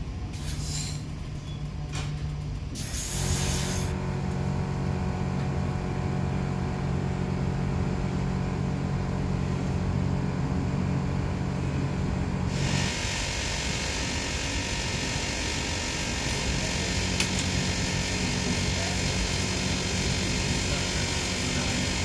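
Inside an electric commuter train: the train's steady low hum and rolling noise as it runs through a station. There is a short hiss about three seconds in, and about thirteen seconds in the running noise turns louder and hissier.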